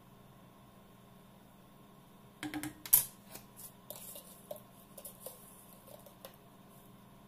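Wooden spatula knocking against a stainless steel pan as it is lifted out and set down: a quick cluster of knocks ending in one sharp clack, followed by a few scattered light clicks and clinks of kitchen utensils.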